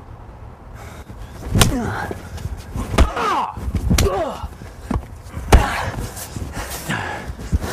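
Two men brawling: a string of sharp smacks and thuds from blows landing, about a second or so apart, each followed by a short grunt or cry of effort and pain.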